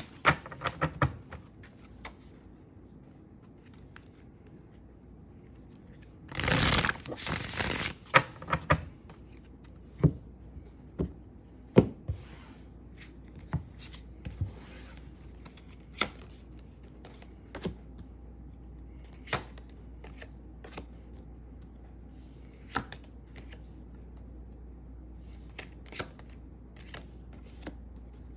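A deck of tarot cards being shuffled and drawn by hand: a dense rustle of cards riffling about six and a half seconds in, then single sharp card snaps and taps every second or two.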